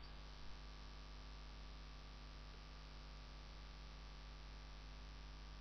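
Faint steady electrical hum with background hiss, the room tone of a microphone recording; nothing else sounds.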